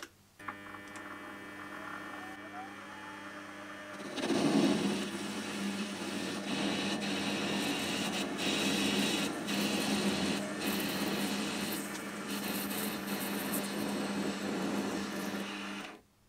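Small metal lathe starting with a click and running with a steady motor hum. About four seconds in the cutting tool starts cutting a metal part held in a four-jaw chuck, adding a louder, rough cutting noise. Everything stops just before the end.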